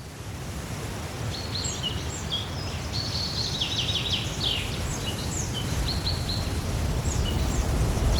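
Outdoor ambience with many birds chirping in quick short calls over a steady rushing noise, and a low rumble that grows louder toward the end.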